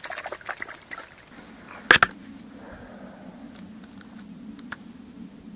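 Dry reed stems rustling and a spinning rod and reel being handled, with a sharp click about two seconds in. A steady low hum sets in partway through.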